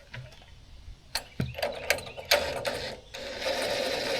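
Metal ratcheting mechanism clicking. A few separate clicks come first, then a quick, steady run of ratchet clicks through the second half.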